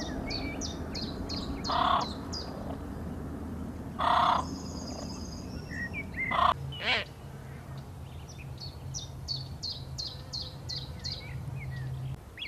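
Morning bird chorus in a village: a quick run of high chirps, repeated a few times a second, with three louder calls about two seconds apart. A low steady hum runs underneath.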